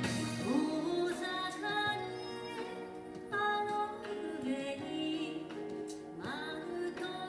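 Music: a song with a singing voice held on long, bending notes over instrumental accompaniment.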